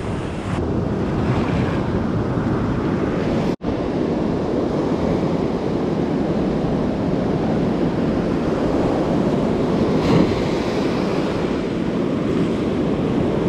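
Ocean surf breaking and washing up a sand beach, with wind buffeting the microphone. The sound cuts out for an instant about three and a half seconds in.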